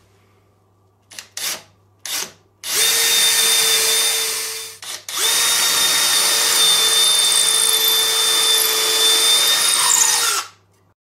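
Cordless drill boring into a wooden board: a few short trigger taps to start the hole, then two long runs at steady speed with a high motor whine, the second lasting about five seconds before it stops.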